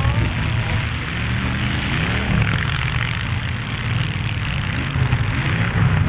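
Demolition derby car engines running with a steady, loud low rumble, their pitch shifting unevenly as the cars rev.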